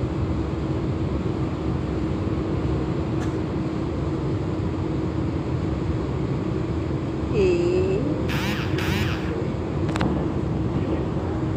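Steady low rumble of a large cruise ship under way, mixed with wind on the microphone and a faint steady hum. About two-thirds of the way through there is a brief sliding tone, then a few short sharp noises.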